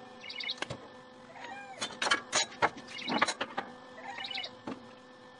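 Clicks and knocks of a tape measure and a steel square-tube frame being handled on a steel welding table, the loudest a few sharp knocks in the middle. A bird repeats a short chirping call a couple of times, over a faint steady hum.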